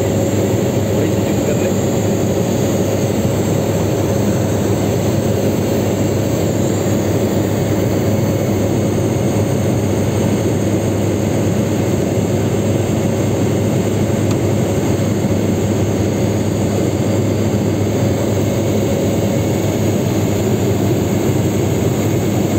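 Aircraft cabin noise in flight: the steady, unbroken drone of the engines and airflow heard from inside the cabin, with a faint constant hum.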